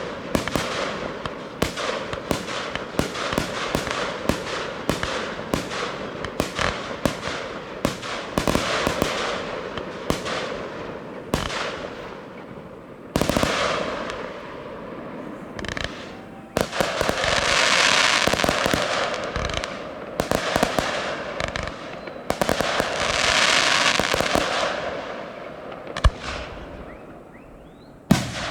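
Professional fireworks display: a rapid run of sharp shell bursts, then a single loud bang. In the second half there are two longer swells of dense crackle, and another sharp bang near the end.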